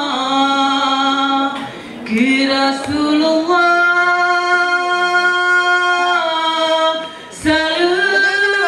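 Unaccompanied female voices singing a slow Ratoh Jaroe chant in long held notes, pausing briefly about two seconds in and again near seven seconds. A single thump comes near the end.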